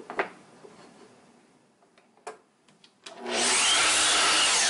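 Makita miter saw switched on about three seconds in, its motor running loudly as the blade cuts through a short wooden board to make a segment. A couple of light knocks come before it.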